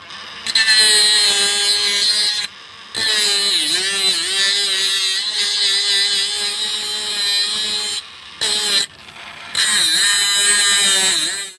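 Small electric motor of a homemade hand grinder running with a steady high whine. It is switched off and on three times, and its pitch sags briefly twice, as when it is pressed against work.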